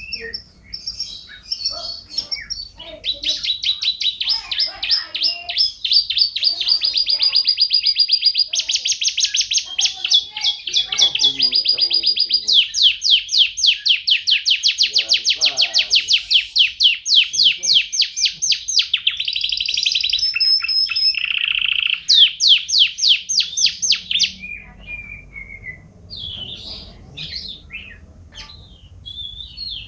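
Canary singing a long, loud song of fast trills and rapid repeated notes, switching to a new trill every few seconds, then trailing off into softer scattered chirps near the end.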